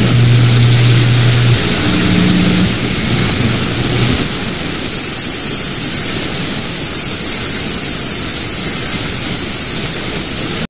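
FM radio static: a loud, steady hiss from a weak or missing broadcast signal, with a low hum during the first second and a half and a brief low tone about two seconds in.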